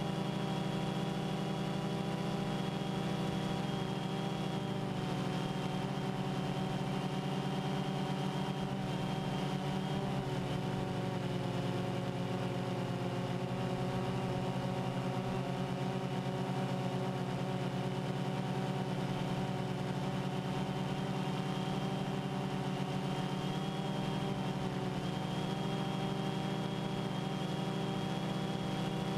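Multirotor drone's motors and propellers whirring steadily, heard through the onboard camera's microphone, the pitch shifting slightly a few times as the drone adjusts.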